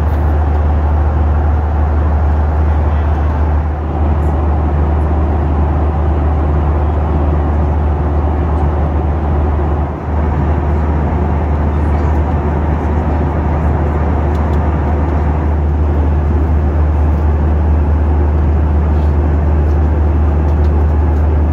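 Steady roar of a Boeing 737's engines and airflow heard inside the cabin in cruise, deep and even, dipping briefly twice.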